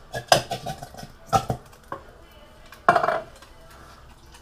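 Metal clinks and knocks as a soup tin and a metal camping mug are handled, in quick strokes with a brief ringing tone, then a louder, longer clatter about three seconds in.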